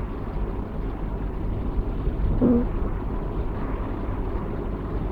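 A chinchilla silver Persian kitten snoring in its sleep: one short, squeaky "puu" on a breath about two and a half seconds in, over a steady low rumble.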